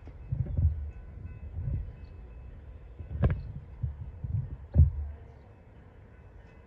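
Wind buffeting a handheld phone microphone: irregular low rumbling gusts, with sharper thumps about three and five seconds in, the second the loudest, then calming for the last second or two.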